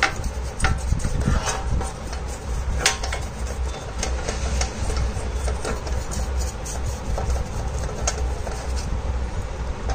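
Stiff brush scrubbing the inside of a Honda Activa's aluminium CVT cover, in irregular scratchy strokes with a few sharp knocks, over a steady low hum.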